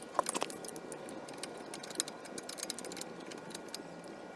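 Ratchet wrench clicking in quick, uneven strokes while a brake caliper bolt is being loosened, with a cluster of louder clicks right at the start.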